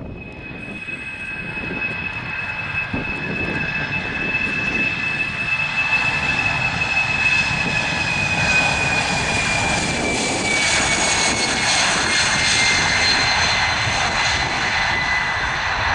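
Airbus A318's twin CFM56 turbofan engines at takeoff thrust during the takeoff roll: a steady jet roar with a high fan whine that slowly falls in pitch, growing louder over the first half as the aircraft approaches.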